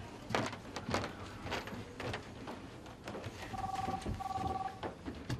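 Desk telephone's electronic ringer trilling twice in two short bursts of a two-pitch warble, an incoming call. Scattered light knocks come before it.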